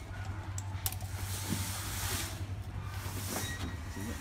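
Steady low background hum and hiss, with a few faint handling clicks.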